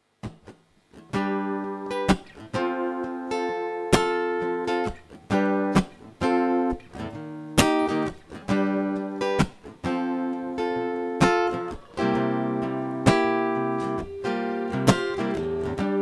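Acoustic guitars strumming chords in a song's instrumental intro, starting about a second in: sharp strokes, each followed by a ringing chord, with no singing.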